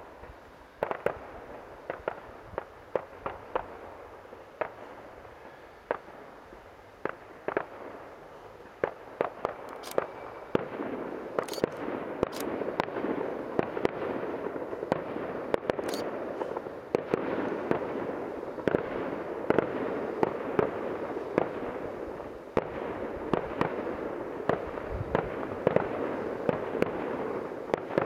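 Professional fireworks display: a rapid, irregular string of sharp bangs and pops from launched and bursting shells, growing denser and louder from about ten seconds in.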